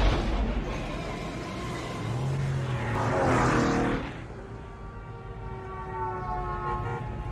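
A car passing by twice, each a rush of noise that swells and fades, the second about three seconds in, followed by steadier traffic noise with several held tones.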